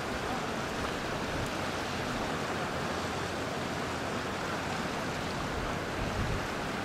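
Steady rush of river water churning into whitewater below a concrete dam.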